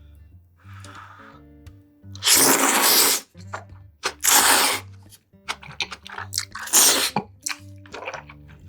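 Close-miked eating sounds over soft background music: three loud, hissing mouth noises about two seconds apart, with small wet clicks between them.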